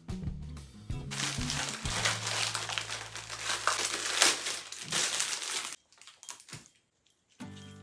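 Packaging being crinkled and handled, a dense crackle lasting about four and a half seconds, over background music. It stops suddenly, and the music comes back near the end.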